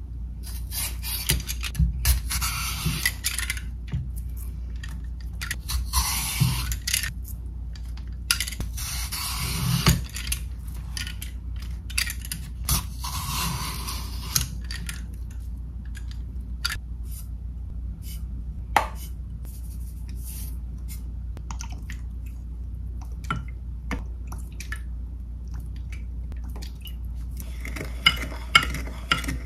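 Kitchen dishes and utensils being handled, with scattered clinks and clicks. In the first half, several one- to two-second bursts of rushing, hiss-like noise; near the end, a quick run of clinks.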